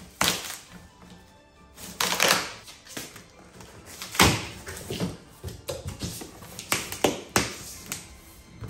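A knife slitting the packing tape on a large cardboard box and the cardboard flaps being pulled open: a series of sharp rips and scrapes, the longest about two seconds in, over quiet background music.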